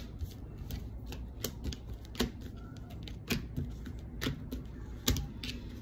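Tarot cards being handled and laid out on a table: a dozen or so light, irregular clicks and taps.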